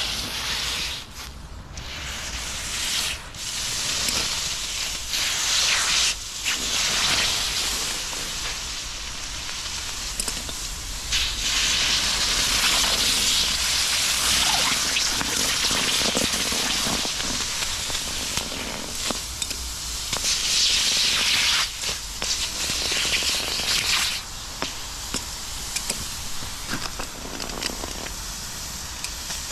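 Furnace burner flame running with a loud, rushing hiss and some crackling. It swells louder several times, most strongly near the middle and about two-thirds of the way in.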